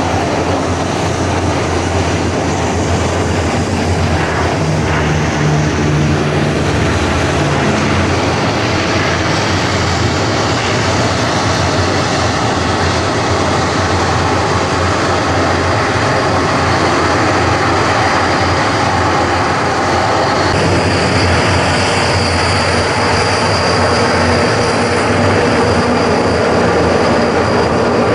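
Aircraft engines running loud and steady, with a high whine joining about three quarters of the way in.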